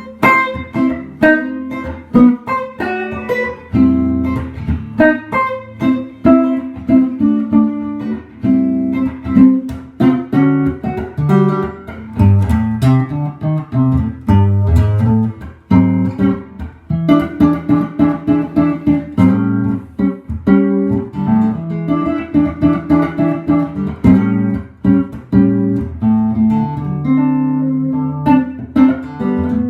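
1966 Gibson ES-125 hollow-body electric guitar played through a Fender '68 Custom Princeton Reverb amp: an improvised run of plucked single notes and chords.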